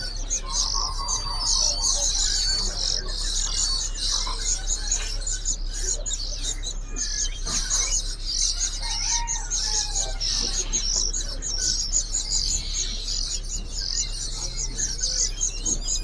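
Many caged songbirds chirping and twittering at once: a dense, continuous high chorus of short calls overlapping one another.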